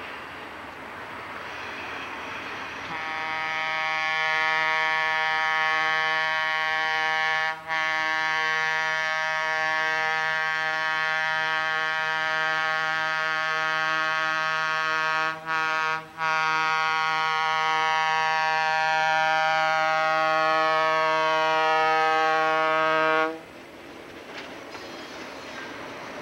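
Diesel locomotive's multi-tone air horn blowing the grade-crossing signal: long, long, short, long, as the train nears a road crossing. The horn comes in about three seconds in and cuts off near the end, leaving the rumble of the locomotive and freight cars rolling by.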